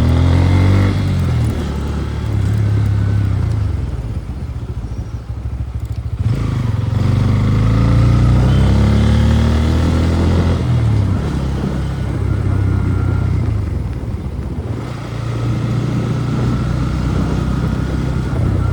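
Motorcycle engine running under way, pitch climbing and dropping several times as it accelerates and shifts, with wind noise on the microphone. The bike is overdue for service, with noises from the rear wheel and front that the rider blames on the neglect.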